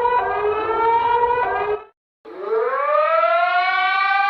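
Civil defense-style warning siren in an emergency alert alarm: a steady wail that stops abruptly about two seconds in, then after a short silence a siren winds up, rising in pitch and levelling off into a steady high wail.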